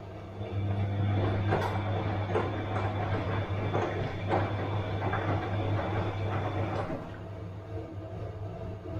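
Bosch washing machine turning its drum: a steady motor hum with a faint high whine and irregular knocks of the tumbling load, stopping about seven seconds in.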